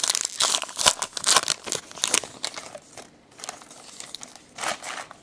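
Wrapper of a Topps Gypsy Queen baseball card pack crinkling and tearing as it is pulled open by hand. It is loudest in the first two seconds, with a shorter crinkle near the end.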